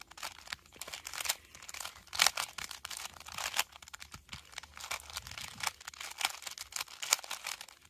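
3x3 Rubik's Cube being turned rapidly by hand during a speed solve: a quick, irregular run of plastic clicks and clacks as the layers snap round.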